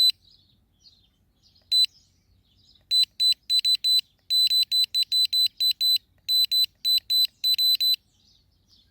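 Portable tyre inflator's control panel beeping as its button is pressed to set the target pressure. One beep, another a couple of seconds later, then a fast run of short high beeps, about three to four a second, for around five seconds. Birds chirp faintly behind.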